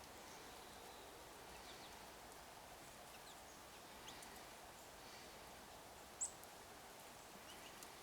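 Faint short high chirps from small songbirds at a feeder, a few scattered calls with one sharper, louder high call about six seconds in, over a low steady background hiss.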